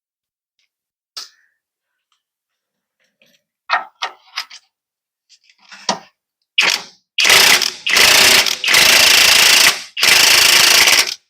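A few light tool clicks, then an impact wrench running in about five loud bursts of roughly a second each from about halfway in, spinning the U-bolt nuts off a rear leaf spring.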